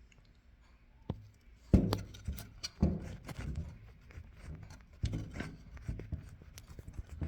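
Handling noise around an opened multi-effects pedal: rubbing and scraping with several sharp knocks as the unit and its casing are moved about.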